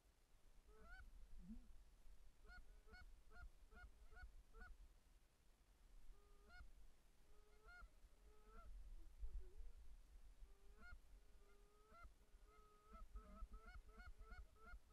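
Faint honking of Canada geese: runs of quick honks separated by short pauses, growing busier near the end. Low wind rumble on the microphone underneath.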